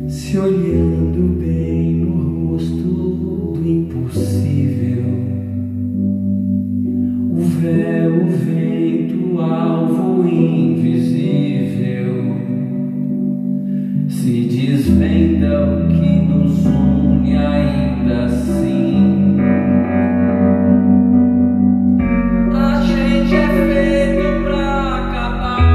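Live band music in an instrumental passage of a slow song: held bass notes that change every few seconds under sustained chords, with a few light percussive strokes. Near the end the bass drops lower and the music grows fuller.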